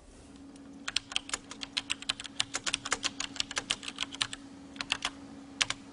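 Fast typing on a desktop computer keyboard: a quick run of key clicks lasting about three and a half seconds, then a few scattered keystrokes near the end.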